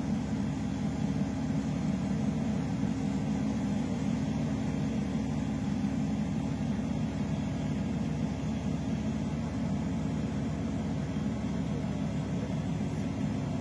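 Steady drone of a boat's engine running on deck at sea, an even low hum that holds without change.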